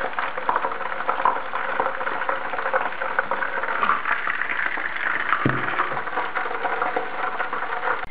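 Sunflower oil sizzling and crackling in a frying pan, a dense steady patter of tiny pops, with one soft knock about five and a half seconds in.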